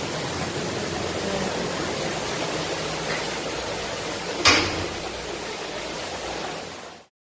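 Floodwater rushing steadily through a flooded building hallway, with one sharp, loud splash or knock about four and a half seconds in.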